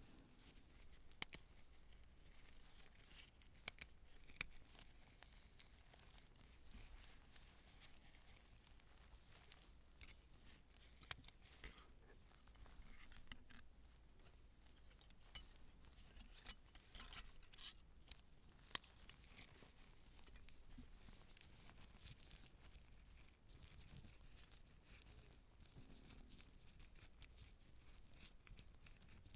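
Faint scattered clicks and snips of surgical instruments being handled, bunched between about ten and nineteen seconds in.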